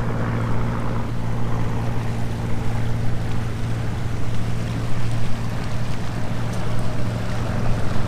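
A boat's motor running with a steady low hum over a constant rushing of water and wind as the boat moves along the river.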